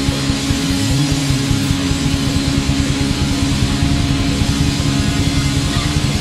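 Metal band playing live at full volume: distorted electric guitars hold low chords over steady drumming.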